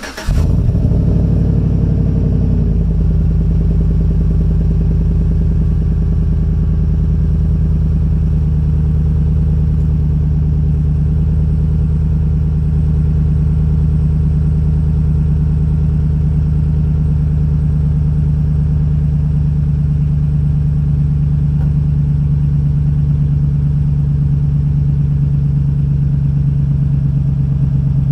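A 2010 Chevrolet Silverado's 5.3-litre V8 has just caught on a cold start and runs at a steady cold idle. It is heard at the exhaust through a stainless MagnaFlow muffler, with one of its three catalytic converters removed. The revs flare as it catches and drop back over the first couple of seconds.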